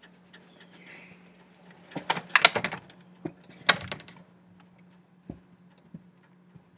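A sliding glass door being opened and shut: a rapid clatter of rattling clicks about two seconds in and a sharp knock just before four seconds, followed by a couple of single soft knocks.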